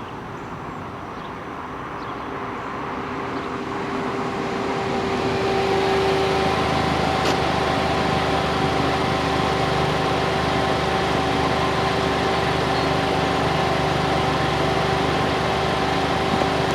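An engine running at a steady speed with a steady whine, growing louder over the first few seconds and then holding level, with a single sharp click about seven seconds in.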